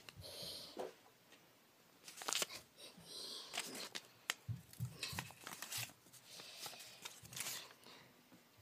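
Rustling and crinkling handling noise from homemade paper-and-cotton figures being moved around in a plastic basket, with irregular light clicks and knocks.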